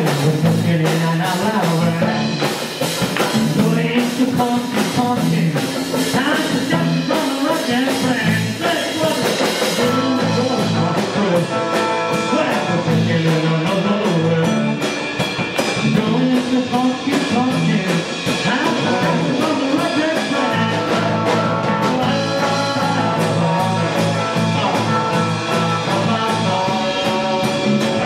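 Live honky-tonk country band playing: electric and acoustic guitars, electric bass and a drum kit keeping a steady beat, with a man singing.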